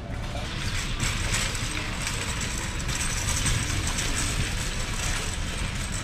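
Metal shopping cart rattling steadily as it is pushed along, its wheels rolling over a concrete sidewalk.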